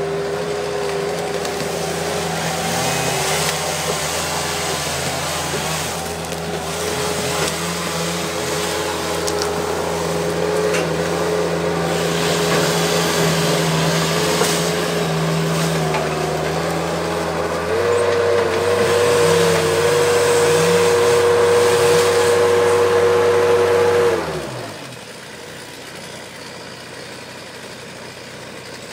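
Bobcat 773 skid steer running steadily, with a held whine and occasional knocks from the machine and grapple. About two-thirds of the way through its pitch steps up and it gets louder. A few seconds later it winds down and stops, leaving a much quieter background.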